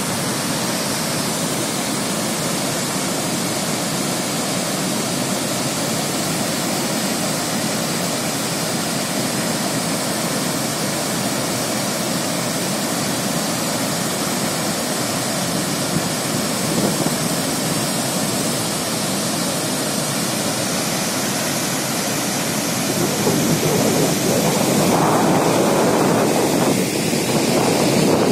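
Steady rushing of a large volume of water released through open dam spillway gates and plunging down the spillway. It grows louder and rougher during the last few seconds.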